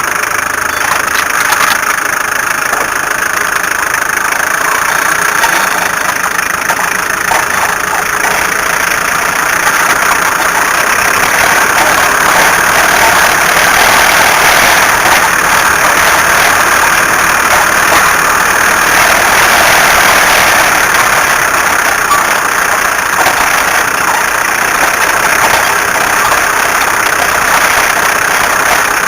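A car's engine running steadily and loudly with a dense, noisy sound.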